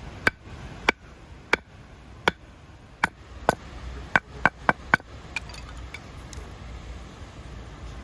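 About eleven sharp hammer blows on metal, each with a short ringing ping. The blows come unevenly, bunching faster around the fourth and fifth seconds, then stop: the sound of tent pegs being hammered in while pitching a tent.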